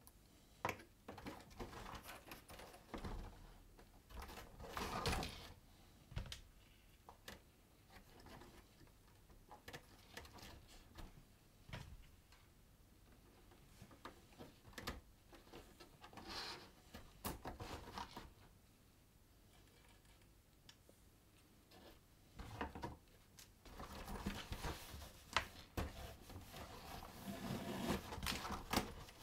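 Leather pieces being handled on a cutting mat: scattered soft rustles, taps and clicks, busier over the last few seconds.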